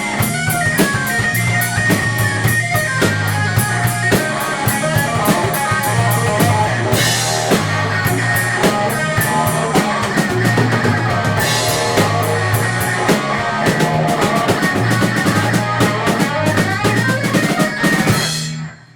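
Rock band playing live without vocals: guitars, bass and a drum kit with a steady beat. The music stops abruptly near the end as the song finishes.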